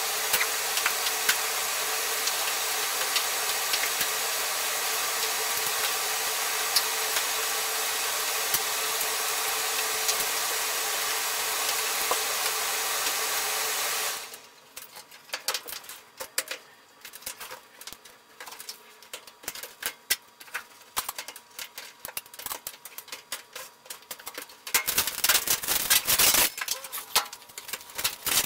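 A steady rushing noise that cuts off suddenly about halfway through. It is followed by scattered clicks, knocks and rubbing as a truck windshield is worked loose from its rubber gasket and handled. There is a louder spell of scraping near the end.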